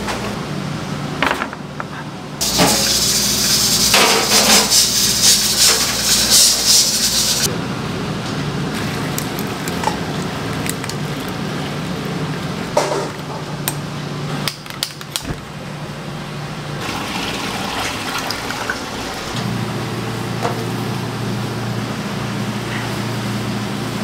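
Running water gushing hard for about five seconds, starting a couple of seconds in, over a steady low hum, with a few sharp knocks.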